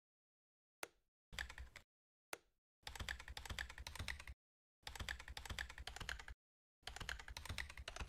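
Computer keyboard typing: a short run of keystrokes about a second in, then three longer runs of quick keystrokes, each about a second and a half, with two single clicks among the first of them and silence in between.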